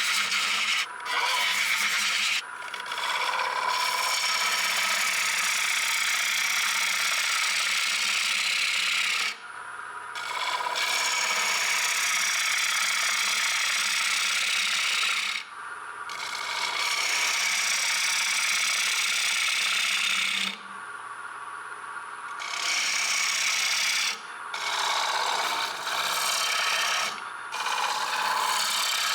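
A turning tool cutting a green sycamore bowl spinning on a wood lathe: a steady hissing cut, broken by several short pauses where the tool comes off the wood, one of them about two seconds long.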